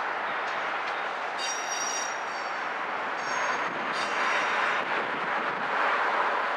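Freight cars, a covered hopper and tank cars, rolling slowly through curving yard track with steady rolling noise, their wheels squealing high-pitched three times against the rails.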